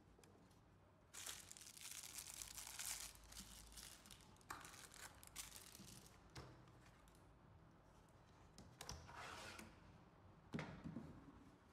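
Cardboard box and small plastic packaging bags rustling and crinkling in bursts as parts are unpacked, with a handling knock near the end.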